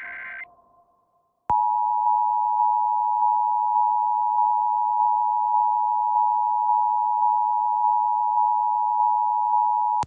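Emergency Alert System attention signal: two steady tones sounded together, starting with a click about a second and a half in and holding unbroken. It announces the alert's voice message, here a Required Monthly Test.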